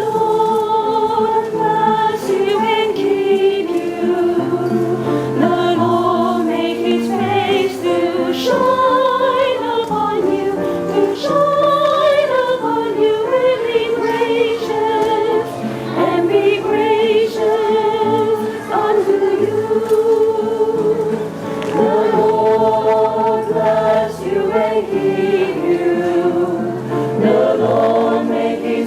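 A choir singing a slow, hymn-like piece in several parts, holding long notes with a wavering vibrato over a low sustained accompaniment.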